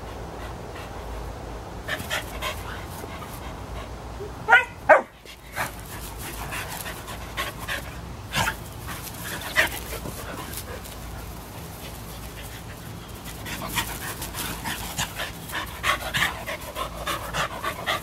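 Dogs playing rough on grass: panting and scuffling, with two short barks about four and a half seconds in and busier panting and scuffling near the end.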